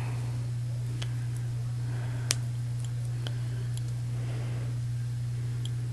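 Steady low hum, with a few faint clicks and soft rustles as hands work twine and small scissors; one sharper click about two seconds in.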